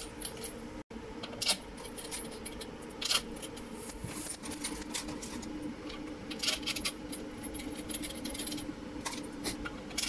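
Scattered light metallic clinks and clicks of bolts and washers being handled and fitted, as a washing machine's motor stator is bolted back in place.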